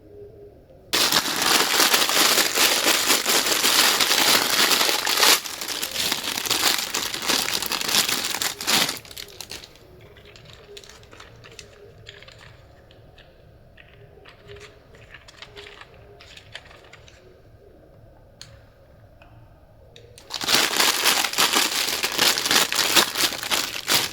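Loud crinkling of wrapping being handled, in two stretches: from about a second in until about nine seconds, and again near the end. Faint small clicks and taps in between.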